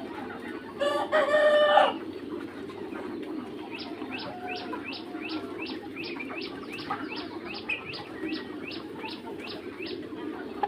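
A young Mía cockerel gives one short crow about a second in. A run of high, falling peeps follows, about three a second for several seconds, over a steady low background hum.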